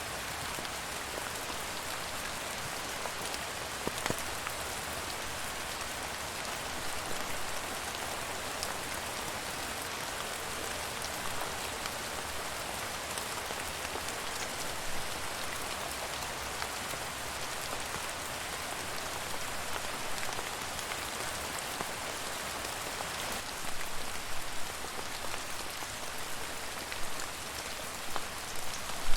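Steady rain falling on a surface, a dense even hiss with scattered individual drops ticking, growing a little louder in patches near the end.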